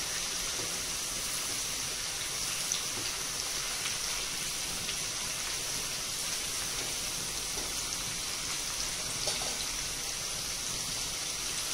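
Marinated boneless chicken pieces shallow-frying in hot oil: a steady sizzling hiss with a couple of small pops.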